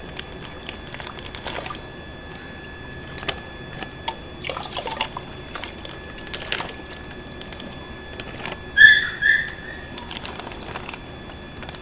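Raw chicken pieces squeezed from a plastic packet dropping into water in a pressure cooker: plastic crinkling with scattered wet plops and splashes. Two short high squeaks, the loudest sounds, come about three-quarters of the way through.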